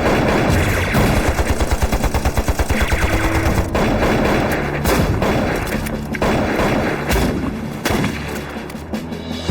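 Gunfire in a film battle scene: a fast, even burst of automatic fire starting about a second in and lasting about two seconds, followed by scattered shots.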